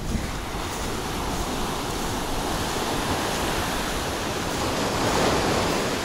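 Sea surf breaking and washing up a sandy beach, with wind buffeting the microphone as a low rumble. The wash swells louder about five seconds in.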